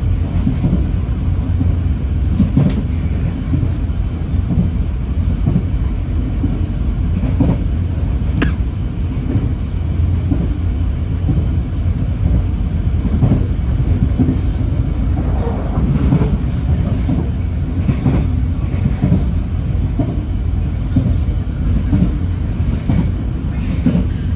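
Moving train heard from inside a carriage: a steady low rumble with scattered, irregular knocks from the wheels running over the rails.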